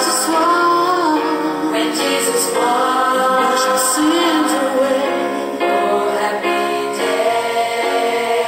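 A song with a group of voices singing over musical accompaniment.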